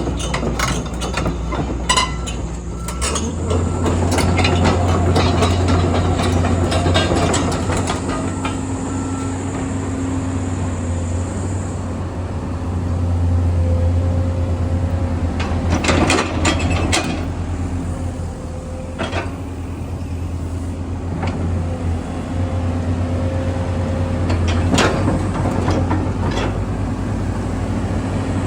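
The 2007 Komatsu PC228USLC excavator's diesel engine runs steadily and steps up in load about three seconds in. A thin whine comes and goes over it, and sharp metallic clanks are heard a few times in the second half.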